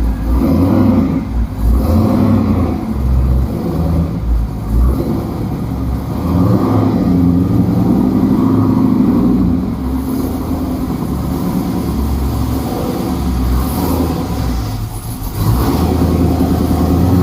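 An LS-swapped Ford Ranger's 5.3-litre LM7 V8 running through MagnaFlow mufflers and an X-pipe, its exhaust note swelling and easing several times.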